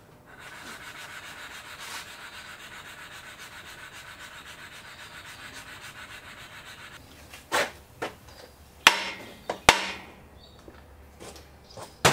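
An engine bearing half shell's thrust face being rubbed back and forth on fine sandpaper over a sheet of glass, a steady, evenly pulsing scraping that stops about seven seconds in; this is hand-lapping the thrust faces to open up the crankshaft end float. A few sharp knocks follow.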